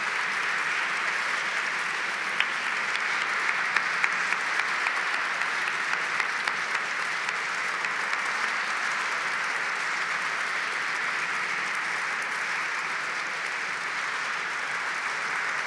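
Audience applauding steadily, with a few sharp single claps standing out in the first several seconds.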